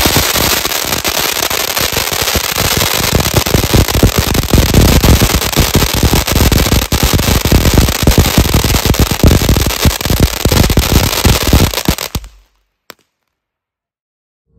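Magnum Crackling Bizar Fountain firework burning: a loud, dense rapid crackle over a steady hiss of spraying sparks. It stops abruptly about twelve seconds in as the fountain burns out, with one faint last pop after it.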